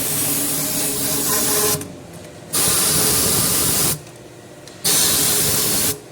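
Compressed air hissing out in three sharp-edged blasts of a second or so each, blowing dirt out of an engine's oil sump.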